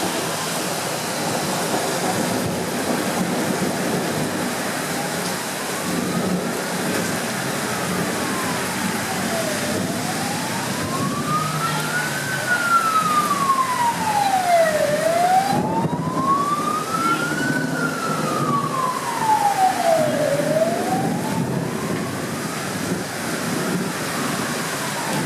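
Emergency vehicle siren wailing in a slow rise and fall, about one cycle every five seconds, growing louder and then fading away. A steady rushing noise runs beneath it throughout.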